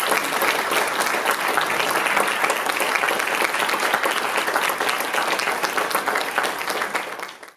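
Audience applauding steadily after a lecture ends, tapering off near the end.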